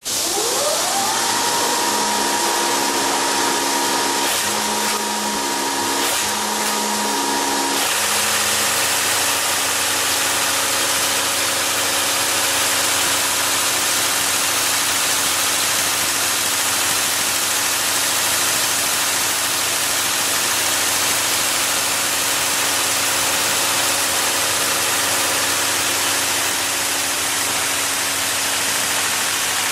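Can body welding machine starting and running: a whine rises in pitch over about a second and holds, and at about eight seconds the sound changes to the steady hum and rush of the machine running continuously.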